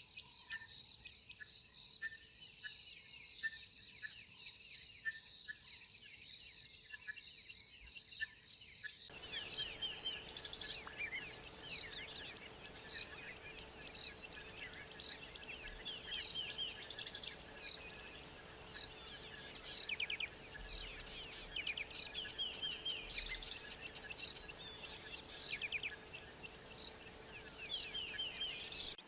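Dawn chorus of many wild birds calling over one another: short chirps, whistles and rapid trills, with a fast, even pulsing trill in the first part. The mix changes abruptly about nine seconds in to a denser chorus.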